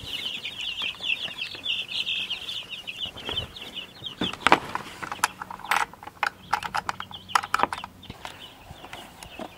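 Many chicks peeping in a dense, high chorus that fades out about three and a half seconds in. A run of sharp clicks and knocks follows as a wooden coop door with a hook latch is handled and swung open, the loudest knock about four and a half seconds in.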